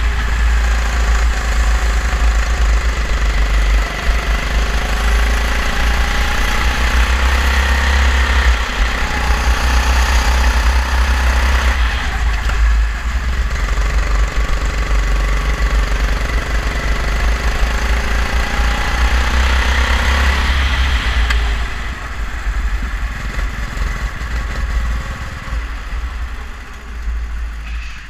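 Go-kart engine heard from on board, revving up and easing off again and again through the corners, its pitch rising and falling. Over the last several seconds it drops lower and quieter as the kart slows.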